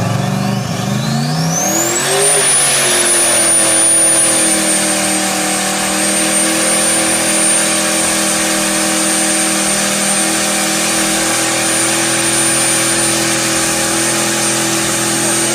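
Car engine revving up over about two seconds, then held flat out at a steady high rpm, with a thin high whine rising with it and then holding. The engine is being run at sustained high rpm to destruction.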